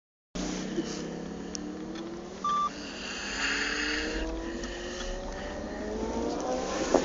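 Car engine and road noise heard from inside the cabin. The engine pitch climbs slowly and drops back several times as the car accelerates through the gears. A short electronic beep sounds about two and a half seconds in.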